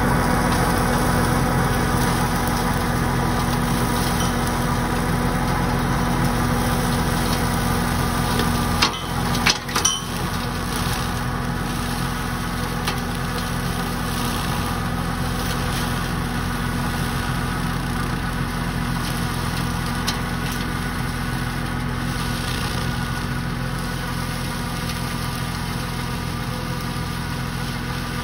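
Kioti compact tractor's diesel engine running steadily under load, driving a BG AGL125F flail mower through tall grass. Two or three sharp knocks come about nine to ten seconds in, and the sound fades slowly as the tractor pulls away.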